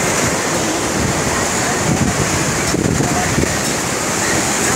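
Sea waves washing over shoreline rocks, a steady rushing noise, with wind buffeting the phone's microphone.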